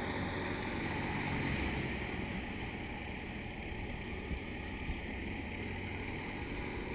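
Crop thresher running with a steady mechanical drone.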